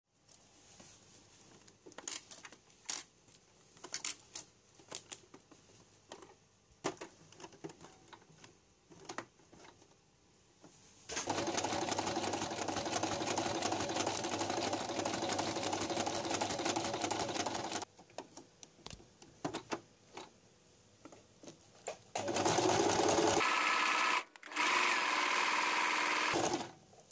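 Electric sewing machine stitching through clear plastic sheet, running steadily for about seven seconds midway, then again near the end in two short, louder spells with a brief stop between. Scattered light clicks come before and between the runs.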